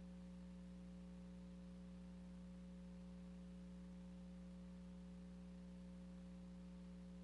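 Near silence: a faint, steady electrical hum over light hiss, the blank soundtrack of a silent film transfer.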